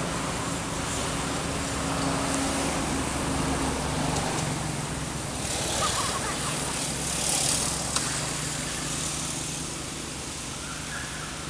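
Steady outdoor background noise with the low hum of a running motor engine, which fades after about four seconds. Two short swells of hiss come around the middle, and there is a single sharp click about eight seconds in.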